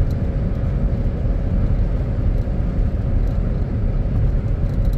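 Car cruising at highway speed, heard from inside the cabin: a steady low road-and-tyre rumble with a faint steady tone.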